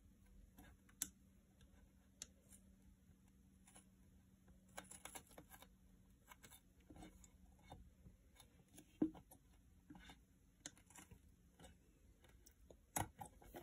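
Scissors cutting through the rubber wall of a basketball: faint, irregular snips and clicks, a few of them sharper.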